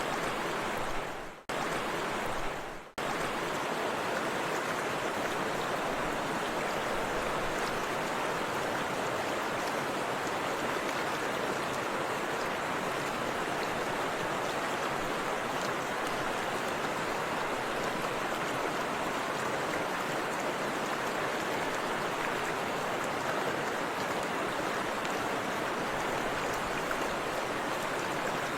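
Forest river flowing: a steady, even rush of water that briefly cuts out twice in the first three seconds.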